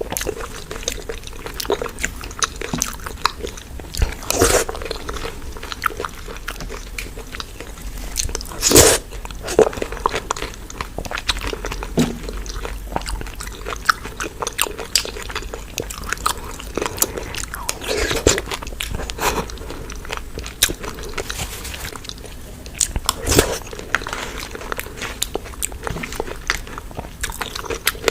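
A person biting and chewing crunchy food close to the microphone: a steady run of small crunches and mouth clicks, with louder bites about four and a half, nine, eighteen and twenty-three seconds in.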